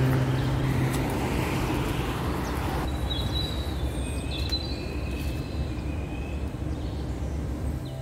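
Outdoor city ambience: a steady, even rush of road traffic and open air, with a few short high chirps in the middle.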